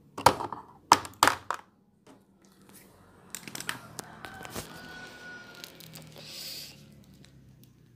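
A few sharp clicks and knocks in the first second and a half, then scattered crackling and rustling: the plastic housing and parts of a washing machine's control module being handled as its screws are taken out.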